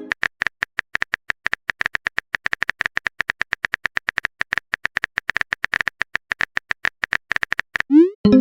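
Phone keyboard typing sound effect: a rapid run of short taps, about seven a second. Near the end, a short rising swoosh and a chime-like tone, the message-sent sound of a chat app.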